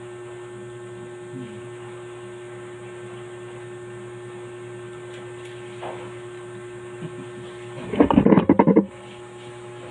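Steady electrical mains hum throughout, with a loud, rapidly crackling burst lasting under a second near the end.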